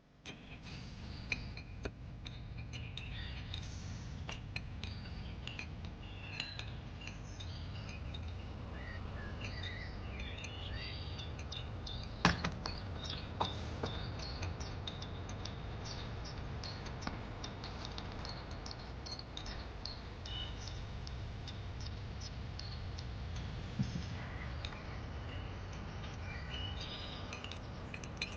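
Steady low background noise with many faint, short high chirps and scattered light clinks and clicks, and one sharper click about twelve seconds in.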